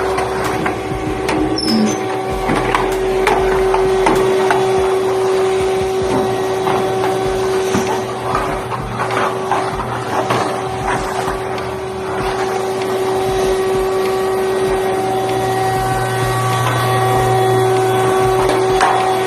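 Vacuum cleaner running steadily with a constant motor whine, sucking up sandstorm dust, with scattered knocks and clicks of the nozzle against surfaces.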